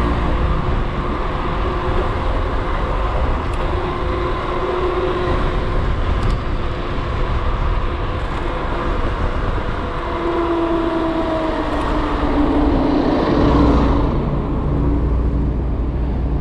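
Steady road and traffic noise heard from a moving bicycle, a continuous rumble with motor vehicles around. A tone slides down in pitch from about ten to fourteen seconds in, and the low rumble grows heavier near the end.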